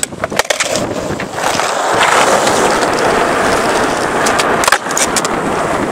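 Skateboard wheels rolling on pavement, with sharp clacks of the board in the first half second and one hard clack about three-quarters of the way through.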